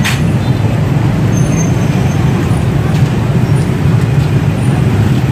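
Dense motorbike and scooter traffic running steadily past on a busy city street, a continuous low rumble of many small engines.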